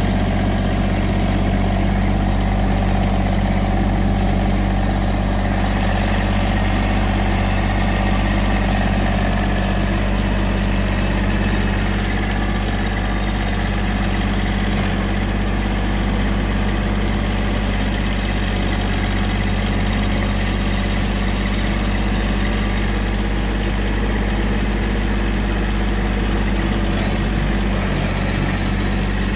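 Massey Ferguson GC1705 subcompact tractor's three-cylinder diesel engine running steadily, heard from the operator's seat while the loader and pallet forks work brush.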